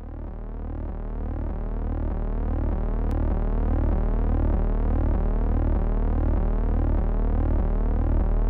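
Synthesized drone fading in over the first few seconds: a deep, slowly pulsing hum with sweeping, shimmering tones above it, the opening of an ambient soundtrack.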